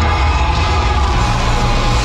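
Loud music from the fireworks show soundtrack, with strong bass.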